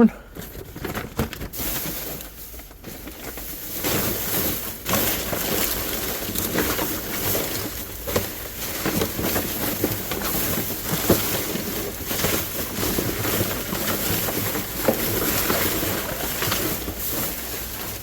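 Rummaging through trash in a dumpster: continuous rustling with many short knocks and clatters.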